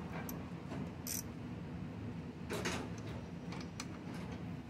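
Quarter-inch socket ratchet clicking in a few short, irregular bursts as it tightens the carburetor mounting nuts, with a longer rattle about two and a half seconds in, over a steady low hum.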